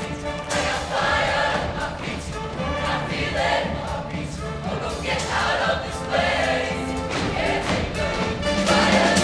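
High school show choir singing together over its live band, with regular drum hits; the music gets louder near the end.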